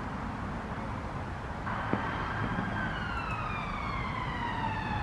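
A siren wailing starts suddenly about two seconds in, its pitch sliding slowly down and then swinging back up at the very end. A light knock sounds just after it starts, over steady outdoor background noise.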